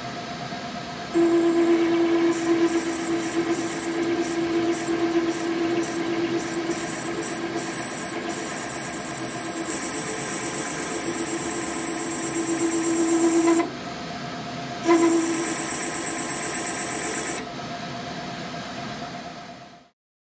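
Metal lathe with a 1.5 mm grooving tool cutting a circlip groove into an aluminium part, the cut giving a steady high-pitched squeal over the lathe's running. This is tool chatter, the warning sign that the tool is about to grab. The squeal starts about a second in, stops for a moment about two-thirds of the way through, comes back briefly, then stops, leaving the lathe running until the sound cuts off near the end.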